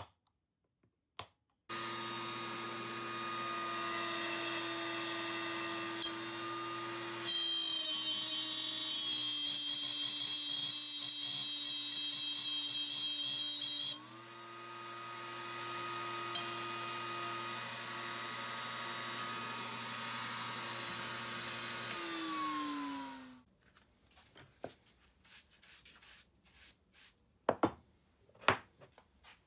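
An electric power tool's motor running steadily at full speed for about twenty seconds, its sound changing twice, then spinning down with a falling whine. Afterwards, light brushing and a few sharp taps.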